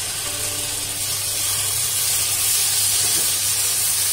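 Water poured into a hot pan of oil-fried chilli and masala mixture, sizzling and hissing steadily as it turns to steam.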